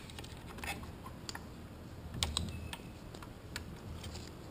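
A handful of light, irregular metal clicks and taps as a small hand tool works a collar along the neutral-switch shaft inside a Toyota A340 automatic transmission case; the sharpest click comes about halfway through.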